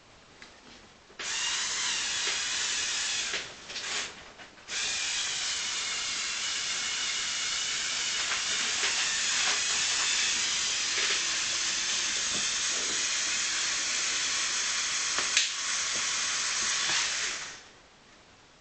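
Electric drive motors and gears of a model ZIL-135 truck whirring steadily as it drives and climbs an obstacle. The whir stops and restarts twice in the first few seconds, then runs on and dies away near the end.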